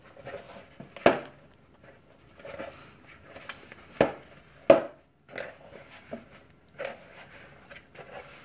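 Hands squeezing and mixing crumbly dumpling dough in a bowl: soft, crunchy squishing, with a few sharp knocks, the loudest about four and five seconds in.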